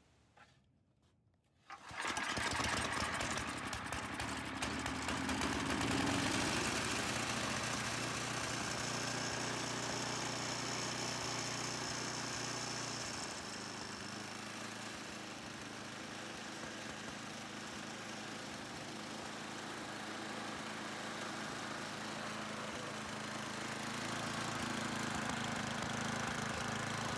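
Ariens Sno-Thro snowblower's single-cylinder engine starting up about two seconds in and then running steadily. It starts right up on fuel about a year and a half old. About 13 seconds in, its note drops lower and quieter, and it rises a little again near the end.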